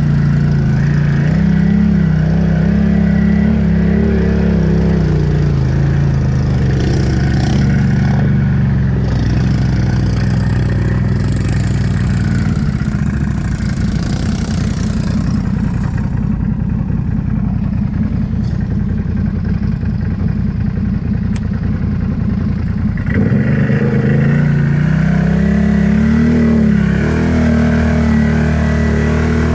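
Can-Am ATV engine running under load as it drives through flooded mud, its revs rising and falling. About twelve seconds in the note sinks to a lower, rougher running, then the revs pick up sharply about twenty-three seconds in.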